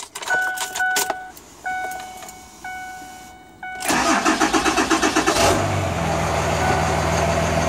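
Cummins 5.9 L 24-valve diesel in a Ford F350 being started. A few key clicks and short dash warning chime tones come first. The starter then cranks for about a second and a half from about four seconds in, and the engine catches and settles into a steady diesel idle.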